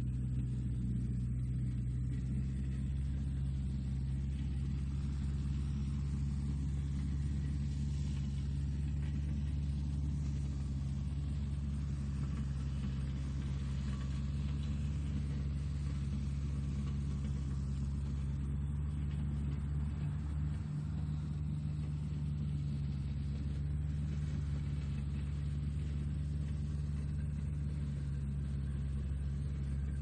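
Tractor engine running at a steady speed: an even, low drone that holds the same pitch throughout.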